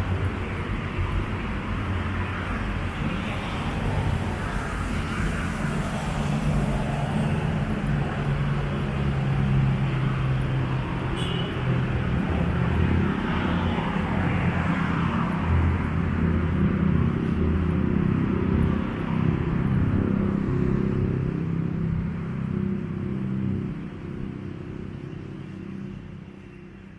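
Traffic on a multi-lane city avenue: cars passing with a steady low rumble and tyre hiss that swells and eases as each goes by, fading out over the last few seconds.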